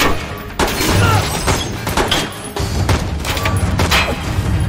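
Gunfire in an action-movie shootout: several shots fired at uneven intervals, over a steady low rumble.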